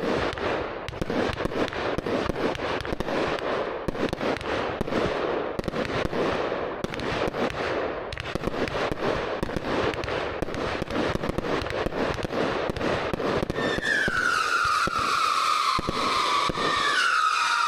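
A 500g round consumer fireworks cake firing a rapid, dense run of shots with crackle. About fourteen seconds in, the shots give way to loud screaming whistles that fall in pitch, two overlapping, from the spinning girandola in the middle of the cake.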